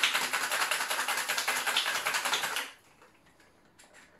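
Ice rattling hard inside a metal cocktail shaker being shaken, a fast steady rattle of many hits a second. It stops abruptly about two-thirds of the way through, leaving only a few faint clicks as the shaker is handled.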